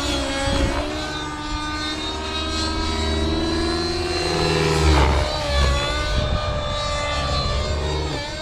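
Synergy N556 RC helicopter's O.S. 55 HZ-R two-stroke nitro engine, with a Hatori tuned pipe, running at governed high rpm through aerobatic flight. Its whine swings up and down in pitch several times as the helicopter swoops past and away.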